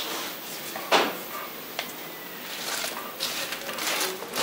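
A few short scrapes against a dry cob wall of clay, sand and straw, the loudest about a second in.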